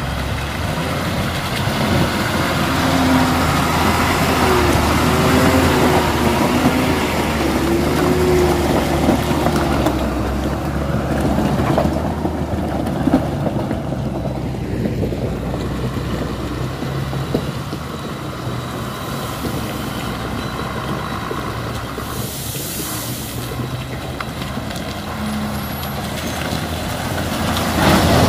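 Heavy diesel truck engines running as trucks crawl through mud, with a brief air-brake hiss about four fifths of the way through.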